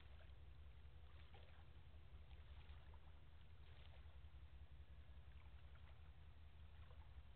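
Near silence: a faint, steady low rumble with a few faint scattered ticks, and no horn.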